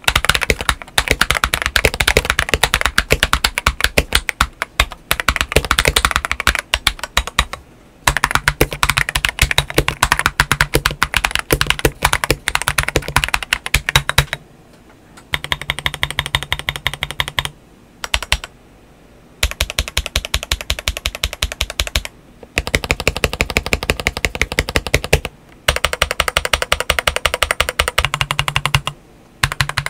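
Fast typing on a Gamma K LK67 mechanical keyboard with Akko CS Vintage White switches and SA-profile PBT keycaps, first with its stock steel plate and then with an aftermarket polycarbonate plate. The keystrokes come in dense runs broken by a few short pauses.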